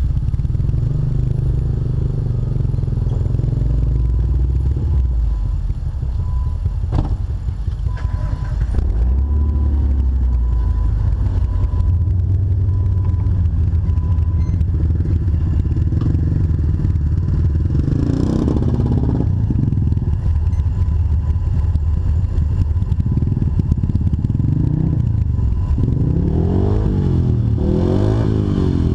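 Off-road Jeep's engine running at low speed while crawling, with a sharp knock about seven seconds in. Near the end the engine revs up and down several times.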